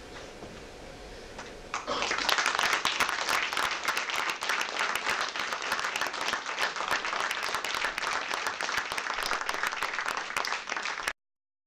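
Theatre audience applauding: many people clapping together, starting suddenly about two seconds in and cutting off abruptly near the end.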